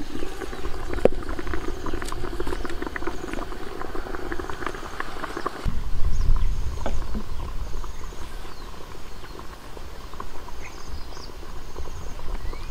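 Dense crackling and rustling of wet banana-leaf parcels being handled as they are taken from the steaming pot. It cuts off suddenly about six seconds in. After that there is a low rumble with a few soft taps as parcels are set down on a woven bamboo tray.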